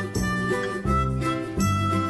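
Background music with a steady beat and a bright melody line.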